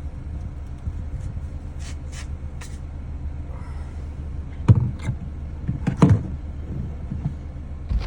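Plastic clicks and knocks from a handheld vacuum's dust bin being unlatched and pulled off, with two sharp knocks near the middle, over a steady low hum.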